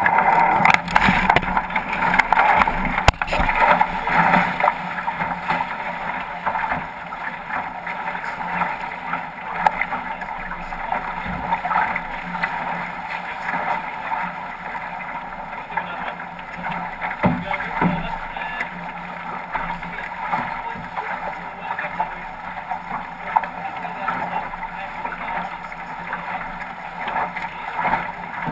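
Water rushing and splashing along the hull of a 505 racing dinghy under sail, with wind on the microphone. The rush is louder in the first few seconds, and there are a couple of brief knocks.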